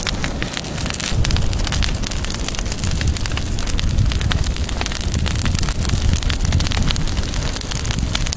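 Large bonfire of dry branches, leaves and cardboard burning hard, with a thick run of crackles and pops over a steady low rumble.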